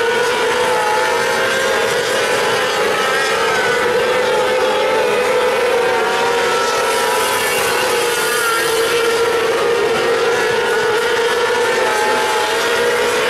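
Several 600cc micro sprint cars racing on a dirt oval, their motorcycle engines running at high revs in a steady, loud drone, the pitches of the separate engines wavering up and down as they go through the turns.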